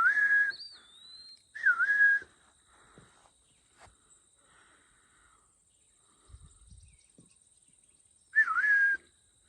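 A person whistling three short notes, near the start, about one and a half seconds in and near the end, each dipping then holding steady, trying to call a bird. A faint higher gliding note follows the first whistle.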